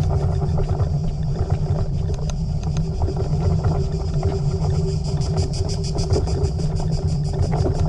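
Ride-along noise from a vehicle moving along a paved lane: a steady low rumble of tyres and wind on the camera, with a fast, light ticking that joins in about halfway through.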